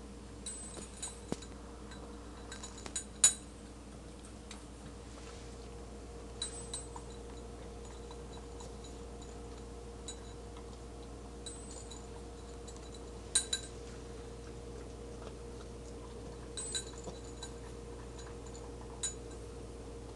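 French bulldog eating dry kibble from a stainless steel bowl: irregular metallic clinks as food and muzzle knock against the bowl, the loudest about three seconds in. A steady low hum runs underneath.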